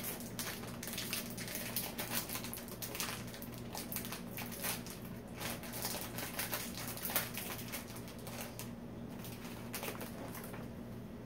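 Plastic snack wrapper crinkling and crackling in quick irregular clicks as it is opened by hand, over a steady low hum; the crackling stops near the end.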